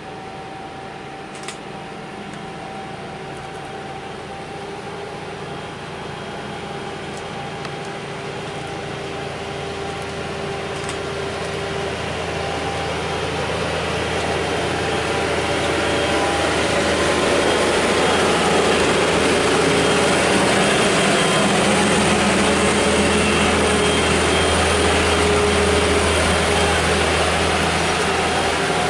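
Engine of a road-rail plant vehicle running as it travels along the track, growing steadily louder as it approaches and passes close by, then staying loud.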